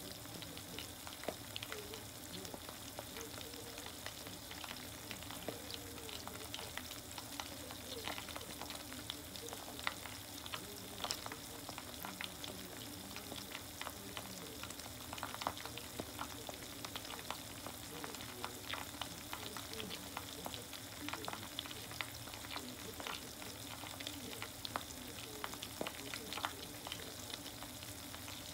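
Chicken karaage deep-frying in oil in a small aluminium mess tin: a steady sizzle with frequent crackles and pops.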